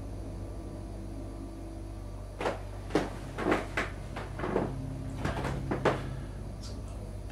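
A quick run of about eight sharp knocks and clacks over three and a half seconds, hard objects being handled, over a steady low hum.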